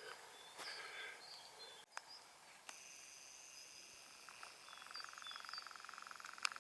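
Quiet outdoor ambience with small birds giving short, high chirps now and then, and a faint rapid buzzy trill about five seconds in. A light click about two seconds in.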